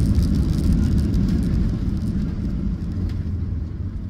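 Low rumble of a Ryanair Boeing 737, heard from inside the cabin as it rolls along the runway, with engine noise and a higher hiss over it. The noise fades steadily as the aircraft slows.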